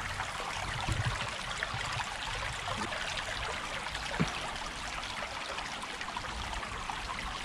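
A shallow beck running steadily over stones at the mouth of a stone culvert tunnel, with a couple of faint knocks.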